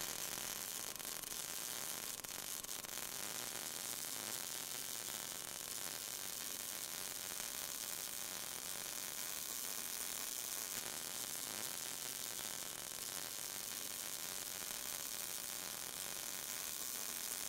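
Steady sizzling hiss of an electric welding arc. It holds even, with no rhythm or change in pitch.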